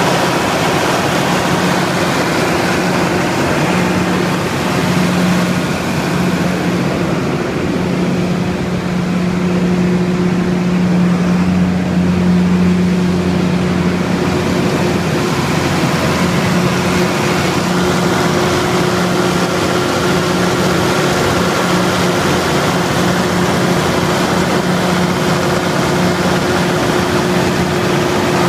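Multiquip DCA180SSV Whisperwatt diesel generator set running at a steady speed with its enclosure doors open: a constant engine hum under the rush of its cooling fan.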